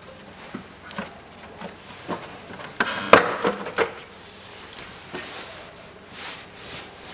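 Plastic engine cover of a Toyota 1MZ-FE V6 being worked loose and lifted off, with scattered clicks and knocks and the loudest clatter about three seconds in.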